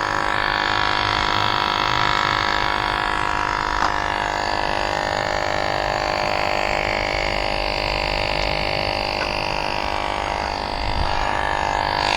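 Battery-powered electric tire inflator running steadily, pumping up a heavy-duty dual-sport e-bike tire toward a preset 40 psi. It gives a continuous droning hum.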